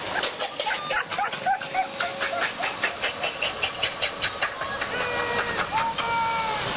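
Greyhound-race spectators shouting the dogs on, in short calls and then longer held shouts from about five seconds in. Over a steady hiss there is a fast run of sharp clicks, about five a second, for the first four seconds or so.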